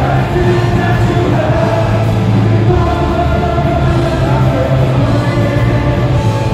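Punk rock band playing live at full volume: electric guitars and drums driving under a sung vocal line, heard from out in the audience.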